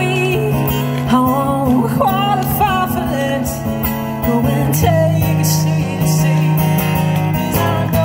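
A woman singing a song with her own acoustic guitar strummed as accompaniment, amplified live through a stage PA.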